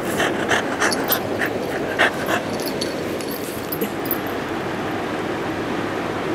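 Shiba Inu panting in quick, short breaths, about three a second, for the first couple of seconds, then easing off: the anxious panting of a dog frightened by thunder.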